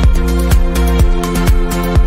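Electronic dance music with a steady kick-drum beat, about two beats a second, under sustained synth chords.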